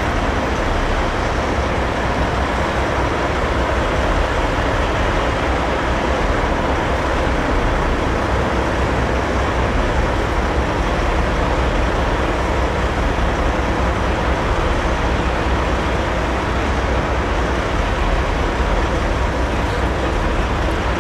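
Steady, continuous rumble of diesel semi-truck engines and vehicle noise, strongest in the low end, with no sudden events.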